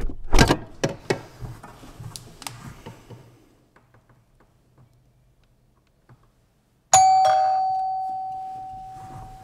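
A few knocks and clatters, then about seven seconds in a doorbell chime strikes once, a single ringing tone that slowly fades away.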